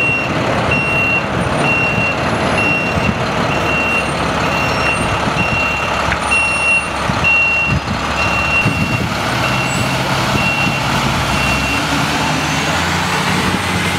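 A truck's reversing alarm beeps about once a second over the low rumble of its engine and surrounding traffic as it backs up. The beeping stops about two seconds before the end.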